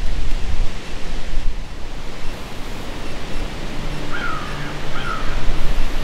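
Strong wind rushing through the forest trees and buffeting the microphone with a low rumble.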